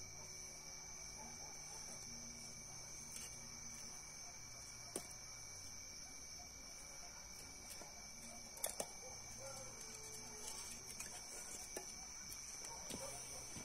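Crickets trilling steadily in a high, continuous chorus, with a few faint knocks and scrapes from a knife shaving a wooden board; the loudest knock comes about nine seconds in.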